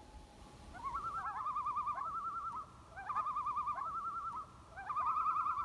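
A bird calling over and over: each call is a few short rising notes followed by a fast wavering trill, and it repeats about every two seconds from about a second in.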